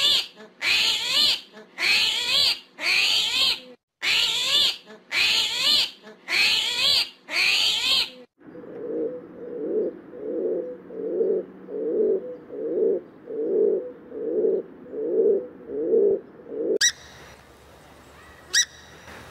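A run of high, squeaky animal calls in quick repeated bursts, then rock pigeons cooing: a low coo repeated about once a second for several seconds. Near the end it goes quiet apart from a few faint clicks.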